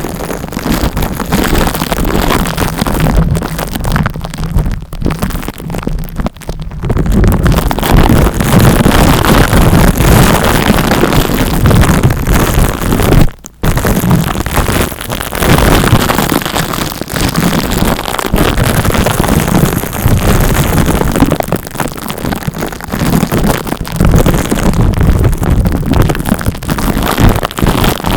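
Loud, dense scratching and rubbing right on the microphone, the scalp-massage trigger used in ASMR. It drops out briefly about halfway through, then carries on.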